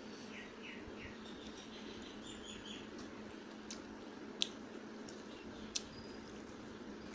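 Quiet eating sounds: a few sharp mouth clicks as a piece of fried egg is bitten and chewed, the loudest about four and a half seconds in. A small bird chirps in the background in two short runs of quick, falling chirps, near the start and again midway.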